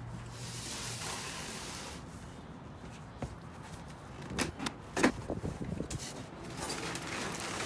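Scattered knocks, clicks and clatter of an inner fender being worked loose and handled at a Jeep Wrangler JK's front wheel well, after a soft hiss in the first two seconds.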